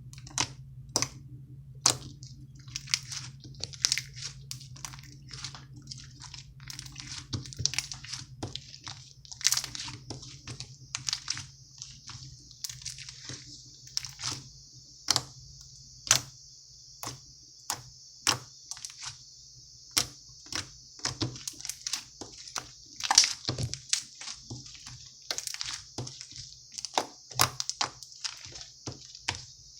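Green slime being squished and pressed by hand, giving irregular sharp pops and clicks, sometimes several a second, with a stretch of soft crackling hiss in the middle.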